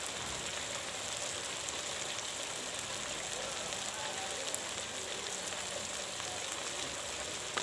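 Chopped onions and tomatoes sizzling in hot oil in a kadhai: a steady frying hiss with fine crackles.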